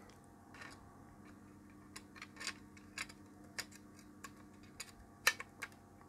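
Faint, irregular clicks and taps of a plastic multimeter case and circuit board being handled and fitted against each other, with one sharper click about five seconds in.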